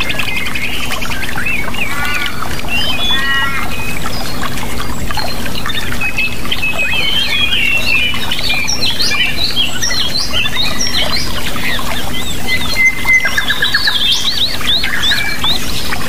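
A chorus of many songbirds chirping, trilling and calling, with rapid bursts of notes densest in the middle and near the end. Underneath runs a steady rush of water and a constant low hum.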